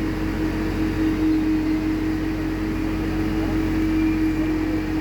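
A motor running steadily, with a constant hum and no change in pitch.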